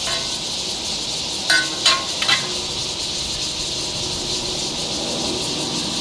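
Eating utensils clinking three times in quick succession, like a spoon striking a bowl, about one and a half to two and a half seconds in, over a steady high hiss of insects.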